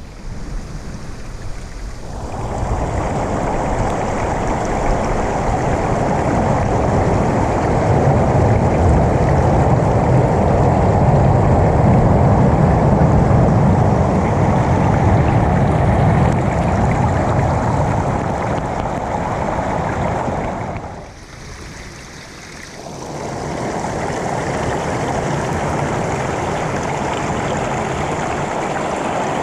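Steady rush of water on a rocky seashore, falling away briefly about two-thirds of the way through before it swells back.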